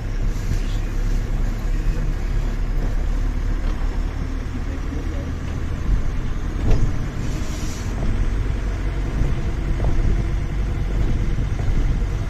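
A road vehicle driving, with a steady low engine and road rumble and a few light clicks and knocks about six to seven seconds in.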